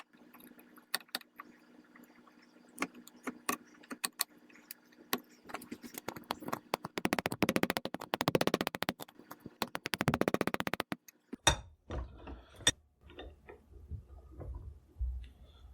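Hand work on a wooden rifle stock: scattered clicks and taps of tools on wood, then about four seconds of fast, even rattling chatter in the middle, the loudest part, followed by low knocks and clicks.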